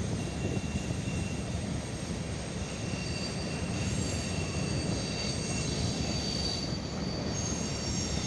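CSX freight train of covered hopper cars rolling past: a steady low rumble of wheels on rail, with thin high wheel squeals that come and go, strongest in the second half.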